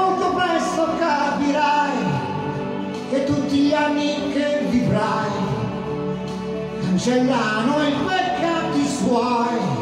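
Music: a pop ballad backing track with a man singing a gliding melody into a hand microphone over it.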